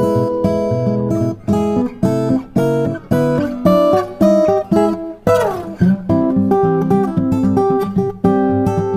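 Background music played on acoustic guitar, plucked and strummed notes with a steady rhythm, with a sliding downward note about five seconds in; it stops abruptly at the end.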